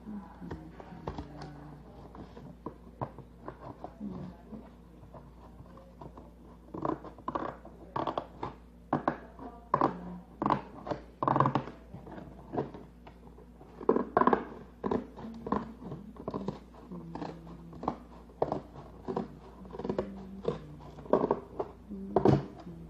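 Scissors cutting through the lid of a cardboard box: an irregular run of snips and crunches of the cardboard, sparse at first and coming thick and fast from about seven seconds in.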